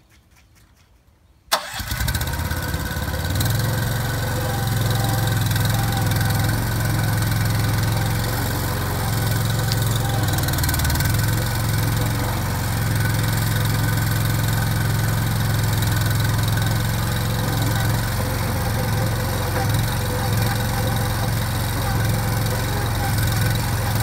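Cormidi C85 self-loading concrete mixer's engine starting about a second and a half in after near silence, then running steadily with a low hum while the loading bucket scoops and lifts sand.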